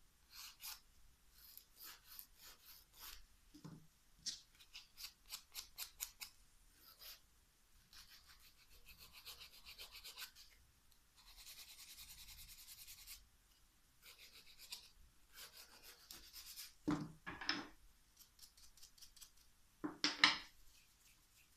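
A nail file rasping across a fingernail in quick back-and-forth strokes, with a couple of seconds of unbroken filing partway through, as it shapes a hardened dipping-powder nail repair. Two louder soft knocks come near the end.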